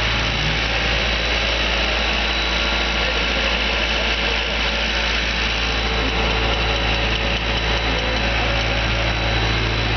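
Skid steer loader's engine running steadily, with a constant low drone and a broad hiss over it, as it drives a pickup broom sweeper attachment.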